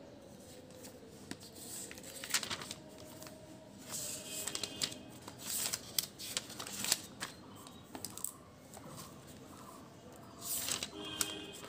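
Pages of a paperback book being turned by hand, the paper rustling in several separate swishes with quieter pauses between.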